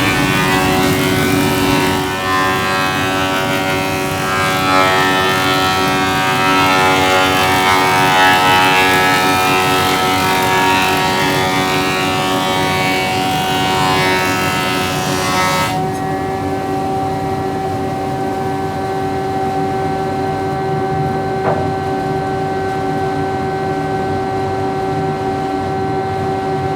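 A woodworking machine's motor running loud and steady at a fixed pitch while timber is cut into new roof boards; a harsh hiss from the cutting stops abruptly about sixteen seconds in and the motor runs on unloaded.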